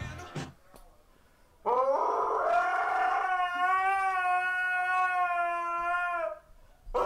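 A dog howling: one long, steady, high howl of about four and a half seconds that sags in pitch as it ends, followed by the start of a second howl just before the end. A snatch of music fades out at the very start.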